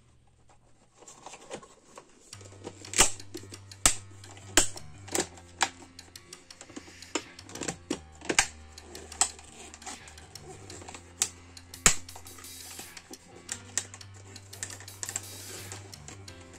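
Sharp, irregular plastic clicks and knocks as a motorcycle instrument cluster's housing and lens cover are handled and pressed into place, the loudest about three seconds in and again near twelve seconds. Background music with a low bass line runs underneath.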